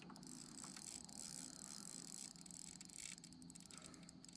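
Fishing reel ticking rapidly and faintly under the strain of a big fish on the line.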